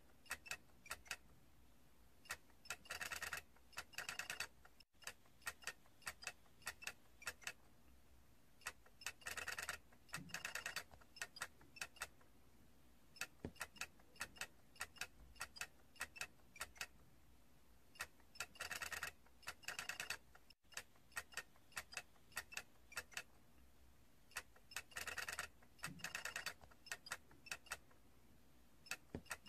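Small plastic toy mechanism clicking as the stacked figures turn and wobble: scattered single ticks, broken four times by short runs of rapid clicking.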